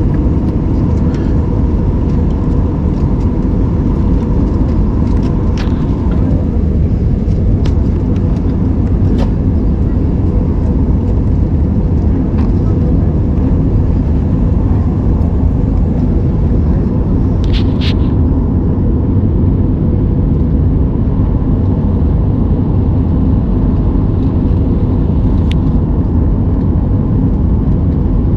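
Steady roar of an airliner's engines and rushing air, heard inside the cabin during the descent to land. A faint steady hum stops about six seconds in, and there are a few short clicks, the clearest about two-thirds of the way through.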